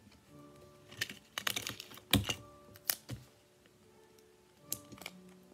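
Scotch tape and paper being handled while taping a paper squishy together: a run of irregular crackles, taps and clicks, busiest about one to three seconds in and again near the end.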